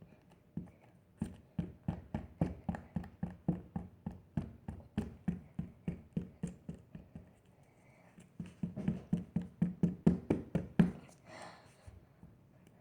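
Hands working slime, making a quick even run of soft taps, about three or four a second. The taps pause briefly around eight seconds in, then resume in a second run that stops about eleven seconds in.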